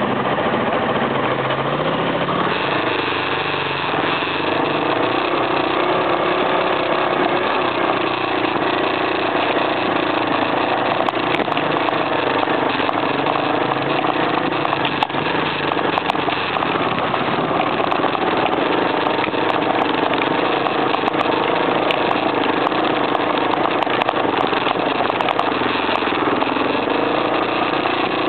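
Single-cylinder trail motorcycle engine running steadily while riding, heard from on the bike, its pitch held fairly even without big revs.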